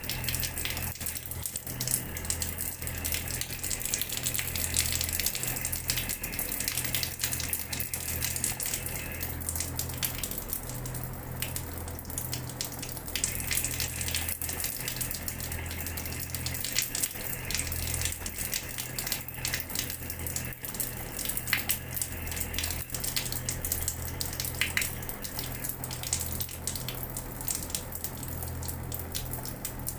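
Water running from a tap and splashing steadily onto a floor, a continuous spatter with a dense scatter of small splashes.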